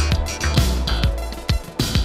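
Background music with a strong drum beat and bass, no singing.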